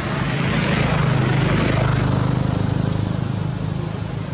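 An engine running steadily with a low hum under a broad hiss, getting a little quieter over the last couple of seconds.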